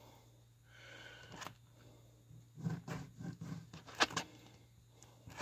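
Quiet knife work on a cutting board as a whole bullhead catfish is scored down to the backbone: soft scrapes and handling noises, with two sharp taps, about one and a half seconds and four seconds in. A steady low hum runs underneath.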